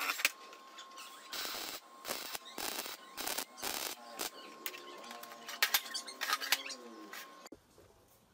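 Irregular clicks, knocks and rattles of small parts and hand tools being handled during workshop assembly, over a faint steady high tone; the sound drops away suddenly near the end.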